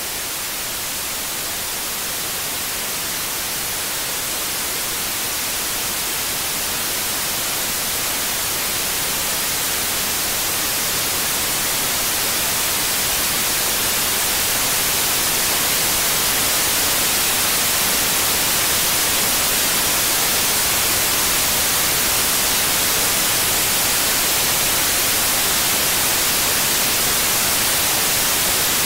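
Electronic static hiss, strongest in the high treble, with no tones or clicks. It slowly grows louder over the first half, then holds steady.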